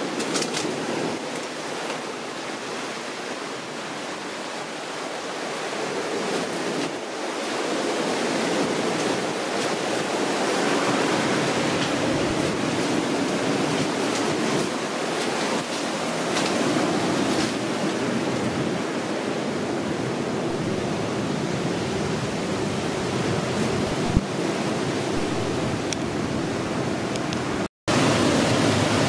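Ocean waves washing onto the shore, a steady rushing noise that swells a few seconds in. It cuts out for a moment near the end.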